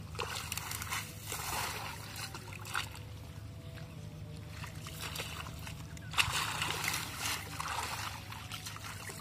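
Hands groping and sloshing through shallow muddy water among grass, in uneven bursts of splashing. The loudest burst comes about six seconds in.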